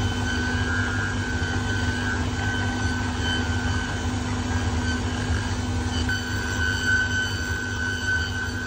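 Cobbler's finishing machine running steadily, with a constant hum and a high whine, as the edge of a new leather sole is trimmed and sanded against its spinning wheel.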